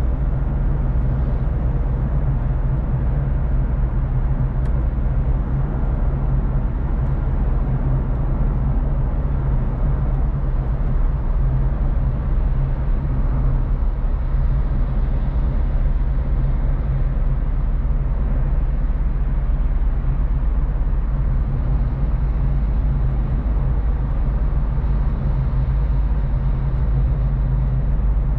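Car driving at a steady speed: a steady low engine hum with tyre and road noise, unchanging throughout.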